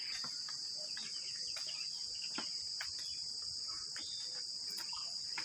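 Insects chirring outdoors: one continuous, steady high-pitched drone, with faint scattered clicks and rustles.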